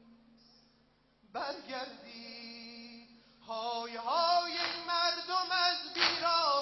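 Mourners' voices singing a Shia mourning lament (nohe) over a held note, coming in about a second in and growing louder about halfway through; a single sharp chest-beating slap near the end.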